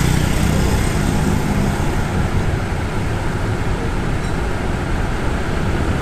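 Tour bus diesel engine idling with a steady low rumble, mixed with road traffic noise. A motorcycle passes close by about the start.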